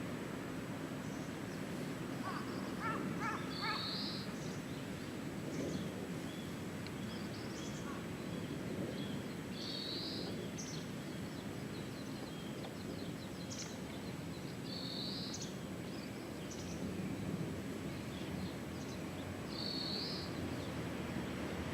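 Birds calling over a steady low background hum: a short high call repeats about every five seconds, with scattered small chirps and a brief run of harsher notes a few seconds in.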